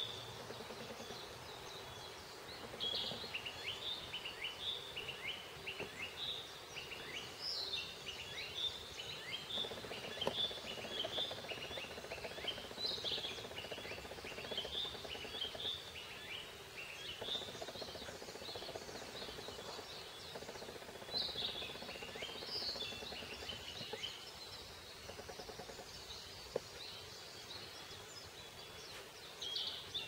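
A mix of wild songbirds singing and calling in a forest, with many short high chirps and trills coming one after another, over a faint steady background noise.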